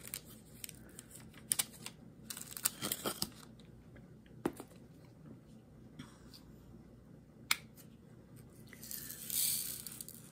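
Small plastic clicks and taps from handling diamond-painting supplies: drill containers and the round coaster being moved about on the table. About nine seconds in, a short rattling rustle as resin drills are tipped from a small container into a tray.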